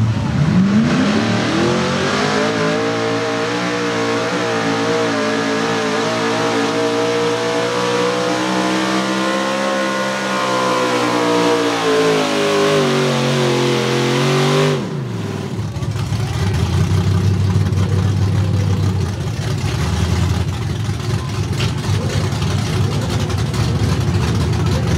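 Chevrolet Silverado pulling truck's small-block V8 revs up and runs at full throttle, its pitch wavering as it drags the sled. From about twelve seconds in the pitch falls as the engine is pulled down by the load, and near fifteen seconds it cuts off suddenly. A lower, rougher engine sound with crowd noise follows.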